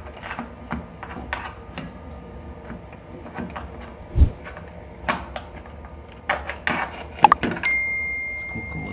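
Scattered knocks and scrapes of tools and loose ceramic wall tiles being worked off the wall, with a heavier thump about four seconds in. A steady high tone starts near the end.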